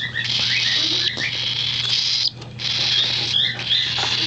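Baby cockatiel's food-begging call: a harsh, raspy hiss in long bouts, with a short break a little past halfway and a few brief rising chirps.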